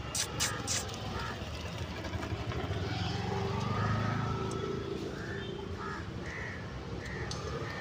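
A motor vehicle's engine passing by, growing louder to a peak about halfway through and then fading. A couple of sharp clicks come just after the start.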